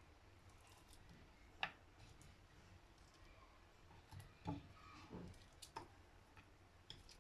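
Near silence with a few faint clicks and soft taps as onion slices are laid out by hand in a pan: one sharp click, then a cluster of soft taps a few seconds later.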